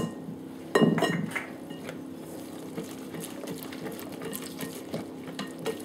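Silicone balloon whisk beating runny cheesecake batter in a glass bowl: wet swishing with quick light ticks of the whisk against the glass, and a louder clatter about a second in. A steady low hum runs underneath.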